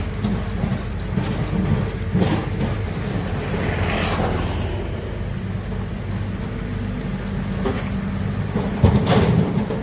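Heavy excavator's engine running steadily under load, with a few brief clanks and scrapes, the loudest near the end.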